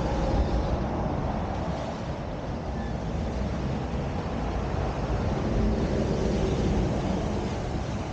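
Honda Transalp motorcycle riding along, its engine running steadily under wind rush.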